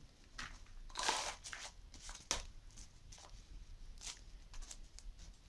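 Gloved hands scooping loose garden soil mixed with sand and packing it into a small plastic cup: soft, irregular scrapes and crunches of soil, the longest about a second in.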